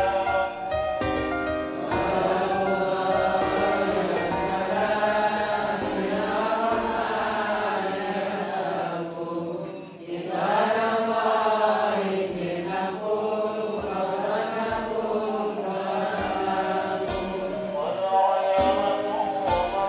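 A large group of voices chanting Islamic prayers in unison: a drawn-out, melodic recitation with a short pause for breath about halfway through.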